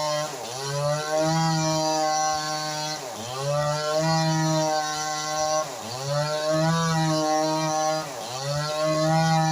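Multipro 58cc two-stroke chainsaw engine running at high revs, its pitch dipping sharply and recovering four times, about every two and a half seconds.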